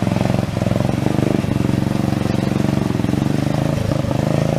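Off-road riding lawn mower's small engine running steadily as it crawls through a rocky creek, its pitch dipping briefly about half a second in and again near the end. Rushing creek water sits beneath it.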